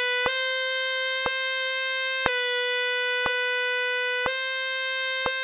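Yamaha Custom 82Z tenor saxophone holding a long, steady tone high in its range, slurring between written high C# and palm-key D and changing note about every two seconds. A metronome clicks once a second under it.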